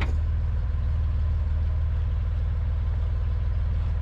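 1962 Chevrolet Greenbrier van's air-cooled flat-six engine idling steadily, with an even low pulsing beat.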